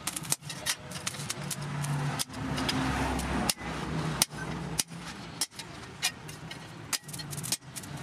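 Hand hammer striking a steel punch held on a chainsaw guide bar over an anvil, sharp metal-on-metal blows at a steady beat of roughly two a second. An engine hums in the background, louder around the middle.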